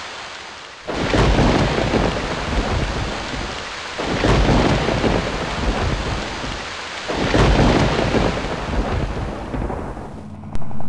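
Rain falling steadily with thunder rolling three times, each roll swelling and fading over about three seconds. Near the end a helicopter rotor's steady pulsing drone cuts in.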